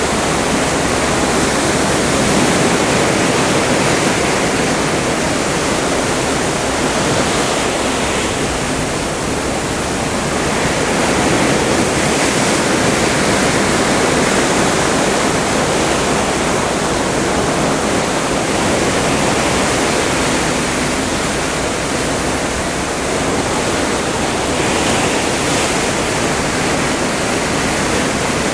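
Open Atlantic sea water rushing and churning alongside a cruise ship under way: a steady, loud wash that swells and eases slowly.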